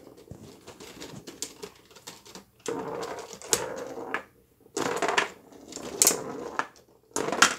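Tabletop foosball game in fast play: plastic players striking the ball and rods knocking and rattling, in rapid clacks with several louder bursts of clatter.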